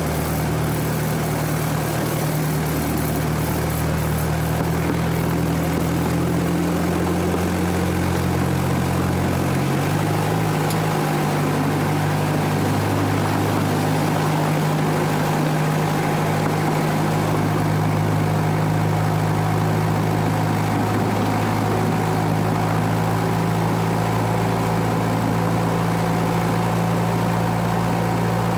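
Miniature railway locomotive's engine running steadily on the move, its note shifting about ten seconds in.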